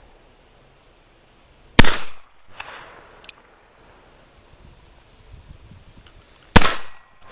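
Two shots from a Pietta .44 caliber 1851 Colt Navy reproduction black powder percussion revolver, about five seconds apart, each a sharp loud report with a short echoing tail.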